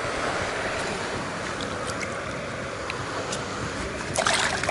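Steady outdoor noise like wind on the microphone, with a few faint ticks and a short rough burst of noise about four seconds in.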